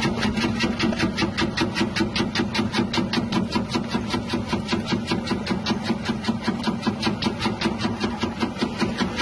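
Electric chip slicer running: its 180-watt motor hums steadily while the rotating wavy blade cuts slices off a tuber in a fast, even rhythm of about five cuts a second.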